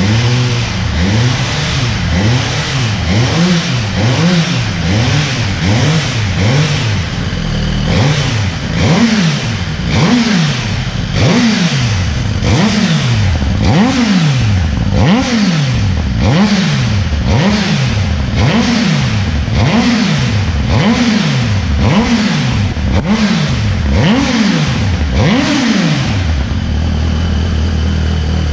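Suzuki GSX-R1000's inline-four engine blipped repeatedly through its exhaust, about one rev a second, each a quick rise and fall in pitch, then dropping back to a steady idle near the end.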